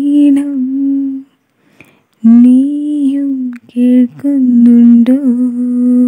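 An unaccompanied solo voice singing slow, long held notes with gentle slides in pitch. A short phrase ends about a second in, and after a brief pause a longer phrase starts just past two seconds.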